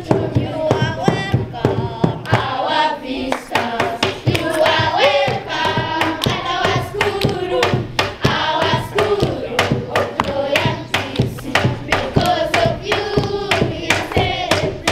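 A group of schoolchildren singing together, clapping a steady beat.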